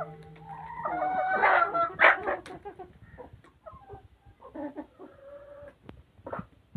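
Chickens calling in a coop: a long, drawn-out squawking call fills the first two seconds or so and is loudest about two seconds in. Scattered short clucks follow.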